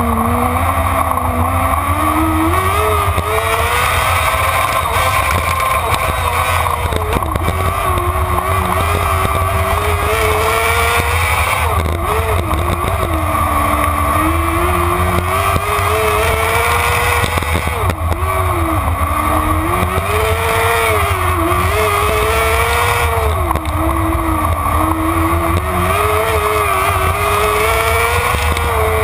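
Sprint car's engine heard from onboard in the cockpit while lapping a dirt oval at race speed, its pitch climbing and then dropping over and over, every few seconds, as the car goes from straight to turn.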